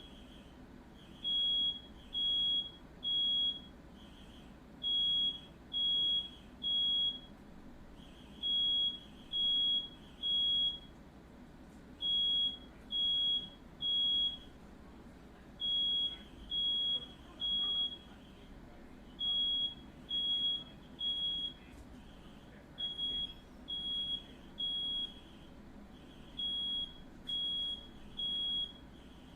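Smoke alarm sounding its evacuation pattern: loud high-pitched beeps in groups of three with a short pause between groups, repeating steadily. This is the standard signal that the alarm has detected smoke or fire.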